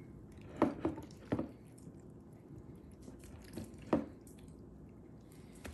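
Hands squishing thin slices of raw beef around in a liquid vinegar marinade: a few short wet squelches and drips.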